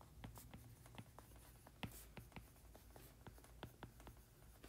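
A stylus tip tapping and clicking faintly on a tablet's glass screen while handwriting, in a string of irregular light taps.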